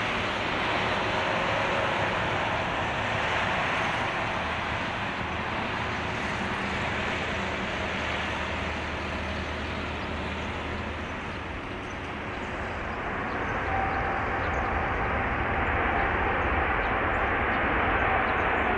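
Jet-engine noise of a Boeing 777-200LR's two GE90 turbofans as the airliner touches down and rolls out along the runway: a steady rushing rumble that eases slightly about two-thirds in, then swells louder near the end as the aircraft draws nearer.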